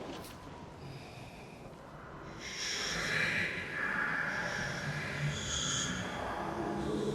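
Raspy, hissing breath-like sound effect that swells up about two and a half seconds in, over a low hum.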